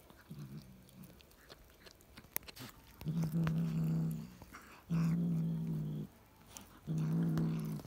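Tabby cat growling low over a pigeon it is eating, three times, each growl steady and about a second long, starting about three seconds in. Before and between the growls come small clicks of its teeth tearing and chewing the carcass.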